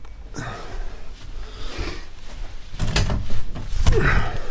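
An interior door being opened and handled: rustling at first, then loud knocks and rattles about three seconds in and again near the end.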